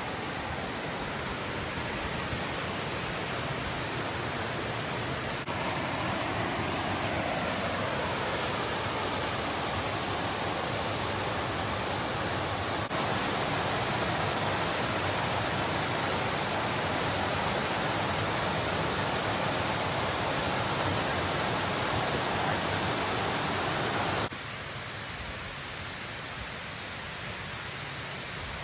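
Steady rush of a mountain creek's cascading water, a continuous noise with no pitch. It steps up in loudness twice and then drops suddenly a few seconds before the end.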